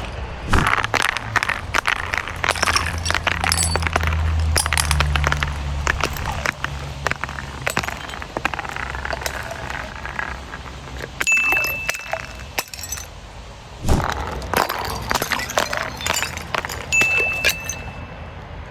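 Glass bottles clinking, knocking and breaking in a rapid, irregular run of sharp cracks and clinks, with heavier smashes about half a second in and again several times in the second half.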